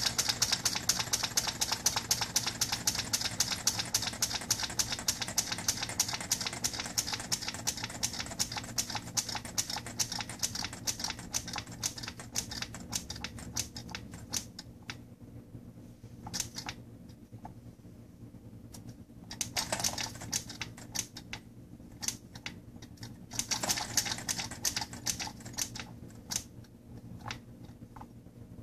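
Soda-can gamma Stirling engine running, its crank and wire linkage clicking rapidly and evenly like typing. About halfway through the clicking turns sparser and quieter, with two short runs of faster clicking near the end.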